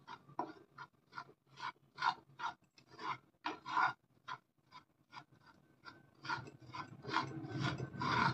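Wooden spatula stirring and scraping semolina in a pan as it is lightly roasted with a little oil. Short rasping strokes come about two or three a second, then run together into denser, more continuous scraping in the last two seconds.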